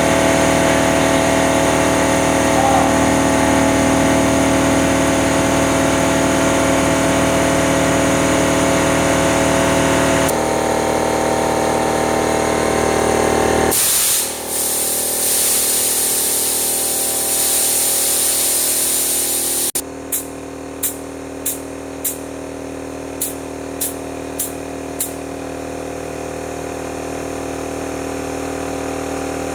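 Three-stage high-pressure scuba air compressor running steadily with a pitched machine hum. About halfway through, a loud hiss of escaping air lasts several seconds and cuts off sharply. It is followed by about eight short hisses of air over a quieter running sound.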